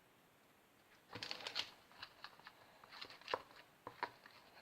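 Light crinkling and tapping of baking soda being added to a bowl of glue for slime: a burst of rustling a little after a second in, then scattered small clicks.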